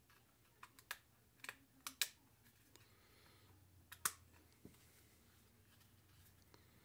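Sharp plastic clicks and snaps from the plastic housing of Fatshark Attitude V2 FPV goggles being pried open by hand: a scattering of clicks in the first two seconds and a louder pair about four seconds in.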